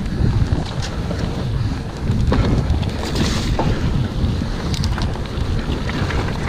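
Wind buffeting the microphone while a mountain bike rolls fast over a gravel trail, with tyre rumble and scattered clicks and rattles from the stones and the bike.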